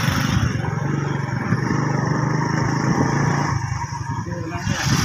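An engine running steadily, a continuous low hum.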